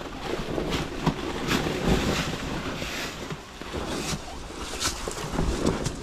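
Yamaha Ténéré 700 adventure motorcycle riding a rough, wet forest trail, heard through wind buffeting the microphone, with several sharp knocks from the bike over the ground.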